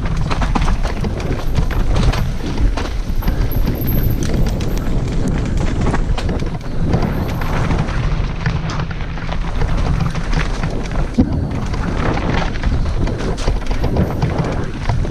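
Mountain bike descending a steep, wet, rooty trail: tyres on dirt and roots, with the bike rattling and clattering over bumps and wind buffeting the microphone.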